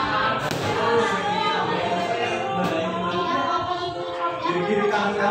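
A song with singing playing in the background, with a few sharp hits of boxing gloves striking focus pads.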